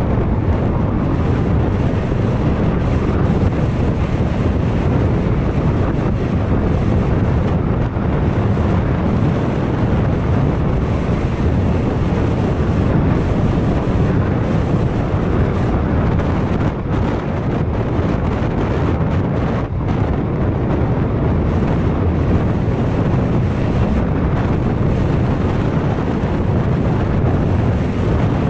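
Steady wind rumble buffeting a GoPro Hero 5 Black's microphone on a motor scooter riding at about 40 to 45 km/h, with road noise from the ride beneath it.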